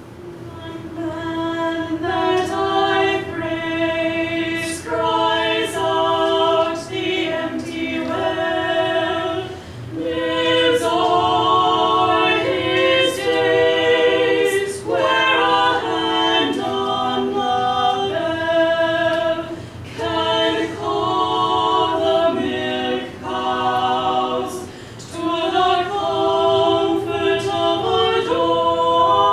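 Women's voices singing unaccompanied, in long held notes grouped into phrases with short breaks between them.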